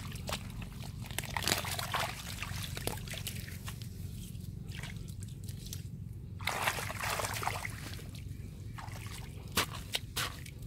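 Muddy water sloshing and trickling as hands and bare feet work through wet mud in a shallow channel, with squelching and splashing that comes and goes; the biggest splash comes a little past the middle.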